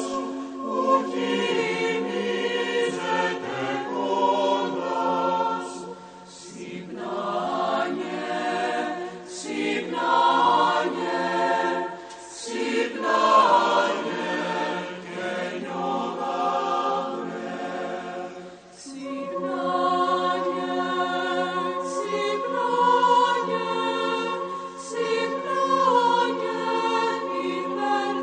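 Mixed choir of women's and men's voices singing in sustained chords, with short pauses between phrases.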